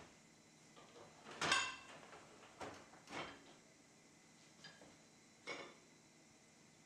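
Dishwasher's lower rack rolled out with a rattle about a second and a half in, followed by several light clinks and knocks of clean dishes and a glass lid being lifted from the rack.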